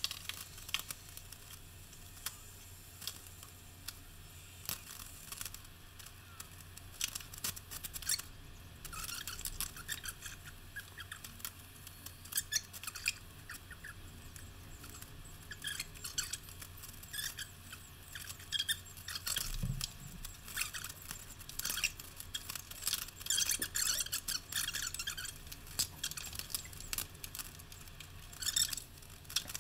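Sped-up sound of hands-on tiling work: a busy scatter of small clicks, taps and scrapes from ceramic tile, tape and tools being handled, with one low thump about two-thirds of the way through.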